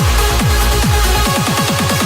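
Trance music: a kick drum beating a little over twice a second under held synth chords. About a second and a half in, the deep bass drops out and the kick turns into a fast drum roll, a build-up.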